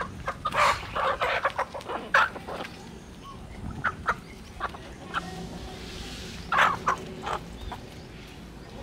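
Chickens clucking in short, irregular calls. The calls are loudest in the first couple of seconds and again about two-thirds of the way through.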